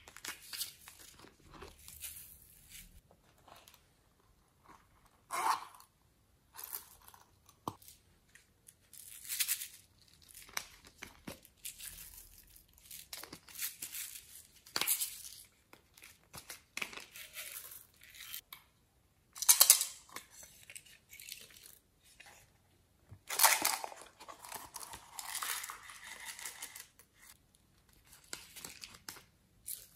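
Slime being handled and stretched by hand, with sticky crackling and tearing sounds in irregular bursts and short quiet gaps between them.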